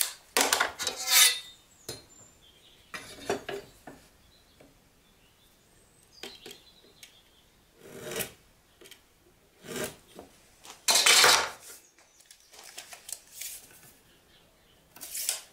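Workshop handling noises: wooden blocks and tools being moved, set down and rubbed or scraped against the bench, in irregular short bursts with quiet gaps between.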